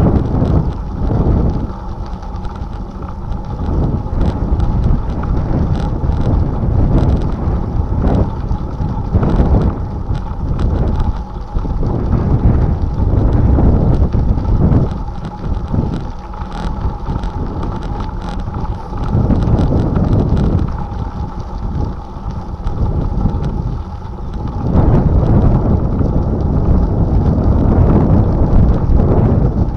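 Wind buffeting the microphone of a bicycle-mounted camera while riding into a headwind: a heavy, gusty rumble that swells and dips, louder again near the end.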